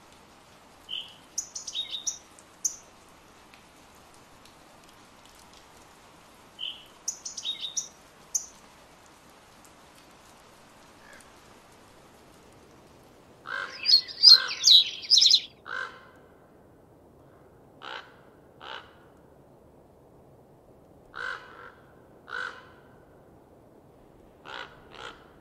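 Birds calling: a short chirping song phrase twice, then a loud cluster of harsh calls about halfway through, followed by single harsh calls every second or two. A faint steady hiss lies underneath.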